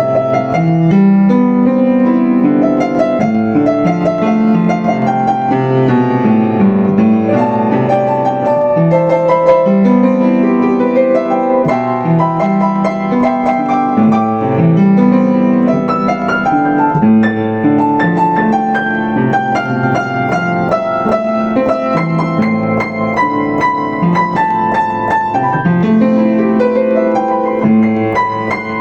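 Yamaha U5 upright piano playing a flowing solo piece: a steady low accompaniment under a melody in the upper notes.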